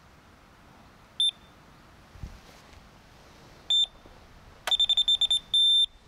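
Electronic carp bite alarm on a rod sounding: two single beeps, then a quick run of beeps about two-thirds of the way in and a short held tone near the end, as line is drawn over the alarm's sensor.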